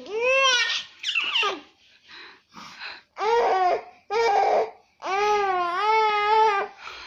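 A baby's high-pitched vocalizing: a string of squeals and drawn-out, cry-like calls rising and falling in pitch. The longest call comes near the end and lasts about a second and a half.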